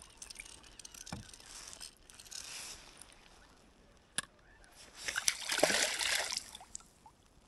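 A hooked whitefish thrashing at the surface near the boat: a burst of splashing about five seconds in, the loudest part. Before it there is soft water sloshing and a single sharp click.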